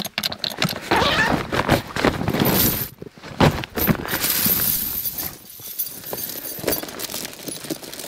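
Steel tyre snow chains rattling and clinking as they are handled and pulled out of a canvas bag, with one sharper clank about three and a half seconds in.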